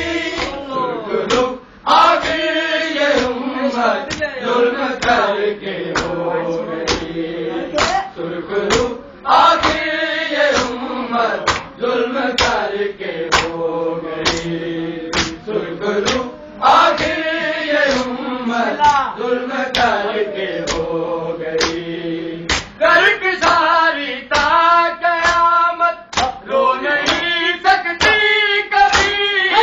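A group of men chanting a noha in unison, a sung lament in long phrases, over a steady beat of open-hand slaps on bare chests (matam), a little more than one slap a second.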